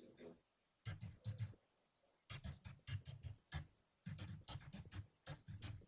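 Typing on a computer keyboard: quick runs of key clicks with short pauses between them.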